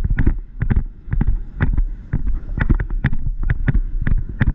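Hoofbeats of a horse going fast across grass, sharp uneven thumps several times a second, heard over a steady low rumble of wind on the microphone.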